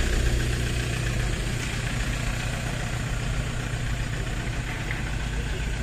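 A vehicle engine idling steadily, an even low hum with no change in speed.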